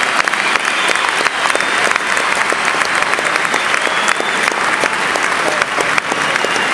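A large football stadium crowd applauding steadily, with dense clapping from many hands close by.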